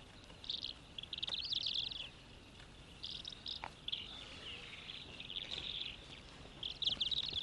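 Small birds chirping in short, high, rapidly trilled bursts, repeating every second or so over faint outdoor background noise.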